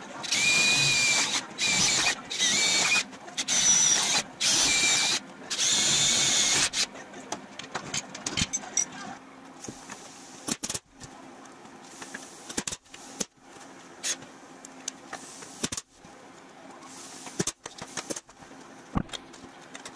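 A power tool run in about six short bursts, each with a whine, while working thin aluminium body panels. After that come scattered sharp clicks and knocks of hand tools on the aluminium sheet.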